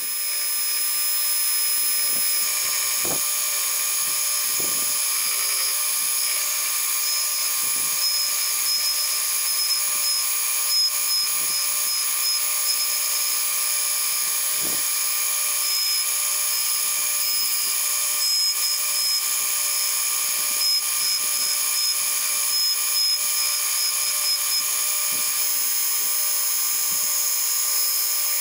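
Belt grinder running at speed with a steady whine, grinding the steel of a double-bit axe head against the abrasive belt. It comes up to full level over about the first second, with faint short scrapes here and there as the head is worked on the belt.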